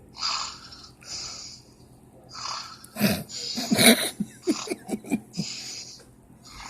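A man asleep with his mouth open, snoring: hissing breaths about once a second, a loud snorting snore about three seconds in, then a quick run of throaty rattles.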